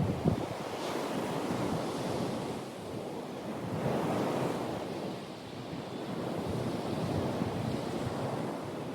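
Ocean surf washing onto the beach, waves swelling and breaking in a steady wash, with wind buffeting the microphone.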